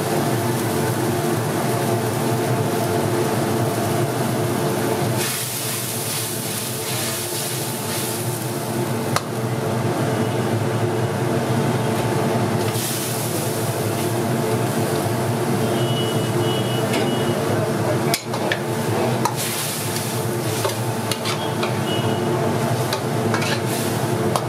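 Food sizzling and being stirred in a large cooking pot, over a steady hum, with a couple of sharp knocks.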